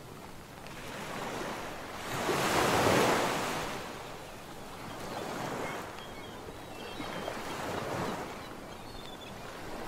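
Sea surf washing onto a shore, swelling and fading in slow surges, loudest about three seconds in.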